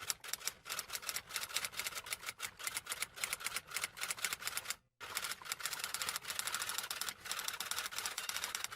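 Fast, uneven clatter of typewriter keystrokes, with a brief pause a little before the middle.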